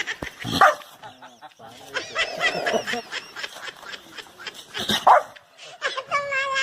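A dog barking: a loud bark about half a second in and another about five seconds in, with drawn-out pitched calls between them and a held one near the end.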